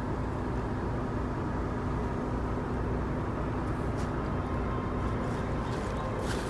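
Steady low rumble of a running vehicle engine with a faint steady hum, and a few faint clicks near the end.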